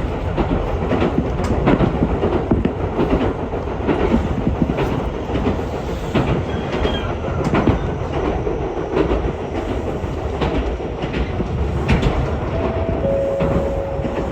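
Electric train running along the line, heard from inside the carriage: a steady rumble with irregular clicks of the wheels over rail joints. A short steady tone sounds near the end.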